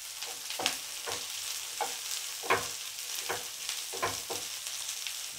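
Chopped onions and green chillies sizzling in a little oil in a nonstick frying pan, stirred with a wooden spatula that scrapes and taps the pan in short irregular strokes about twice a second.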